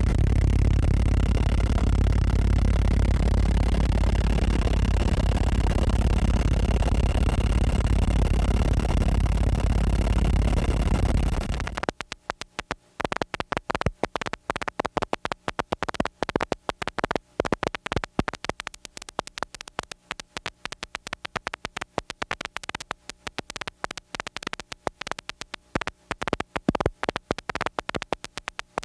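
Loud steady static hiss with faint steady tones, which cuts off suddenly about twelve seconds in and gives way to a rapid, irregular crackle of clicks.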